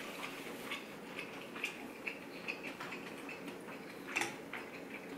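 Faint eating sounds: quiet chewing with a few small clicks, then near the end chopsticks and a ramen spoon clicking against a ceramic bowl.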